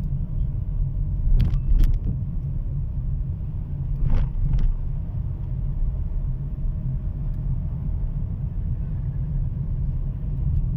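Car in motion heard from inside the cabin: a steady low engine and road rumble, with two brief pairs of clicks or knocks, about a second and a half in and about four seconds in.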